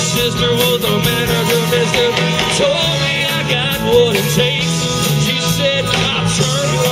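Live rock band playing, with electric guitars, keyboard and horns under a lead singer's voice.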